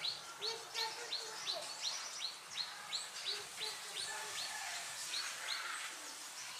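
A bird repeating a short, high, downward-sweeping chirp about three times a second, in a steady series that fades out near the end.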